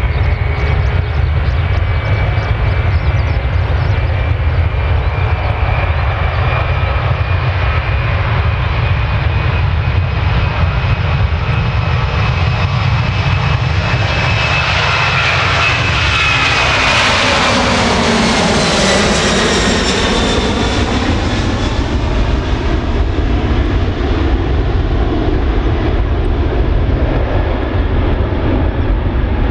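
Boeing 767-300 twin jet engines at takeoff power as the airliner rolls down the runway toward the microphone: a steady high fan whine over a deep rumble. The sound is loudest a little past halfway as the aircraft passes and rotates, the whine dropping in pitch, then a rumble as it climbs away.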